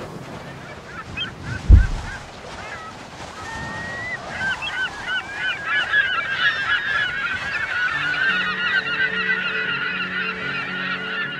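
A single deep thud about two seconds in, then a flock of birds calling in many short, overlapping chirps that build up and carry on. Low held music notes come in near the end.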